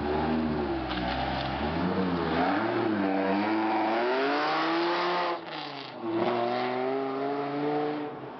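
Dodge Viper GTS's 8.0-litre V10 accelerating, the engine note rising and falling as it revs through the gears. It dips briefly about two-thirds of the way in, then rises again as the car pulls away.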